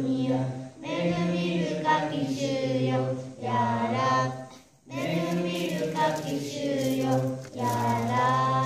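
Group of young girls singing a nasheed together, in sung phrases with short breaks between them, the clearest about five seconds in.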